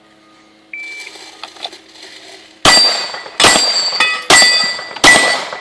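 An electronic shot timer gives one short start beep, then a pistol fires four shots less than a second apart, each hit followed by the ringing of steel plate targets.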